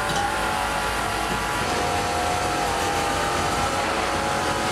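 Steady drone of factory machinery: a constant mechanical hum and hiss with a few held tones.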